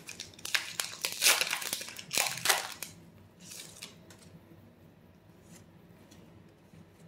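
Foil wrapper of a Pokémon trading-card booster pack crinkling and tearing as it is ripped open and the cards are pulled out. The rustling stops about three seconds in, leaving a few faint ticks.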